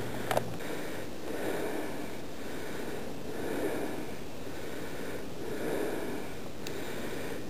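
A hiker breathing hard while carrying the camera, in slow, rhythmic breaths after climbing a steep slope. There are two brief clicks, one near the start and one near the end.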